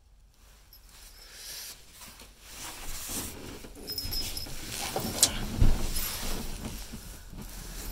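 Handling noise and footsteps as the camera is carried across a hut's wood-effect floor, growing from quiet to shuffling and rustling, with a sharp click and then a thump about five seconds in.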